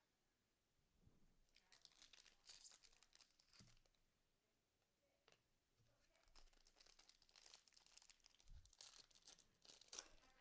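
Faint tearing and crinkling of a trading-card pack wrapper being ripped open, in two spells of rustling.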